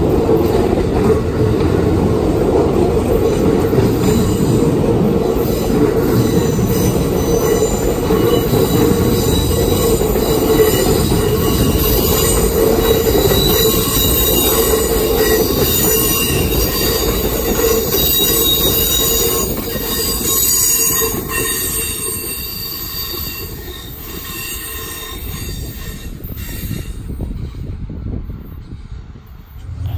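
Amtrak Superliner double-deck passenger cars rolling past close by: steel wheels rumbling on the rails with several high steady squealing tones. The sound fades over the last third as the train moves away.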